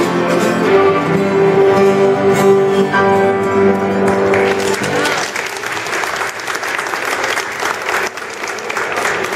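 Three violins with guitars play the last bars of a piece, which ends about halfway through. Audience applause follows.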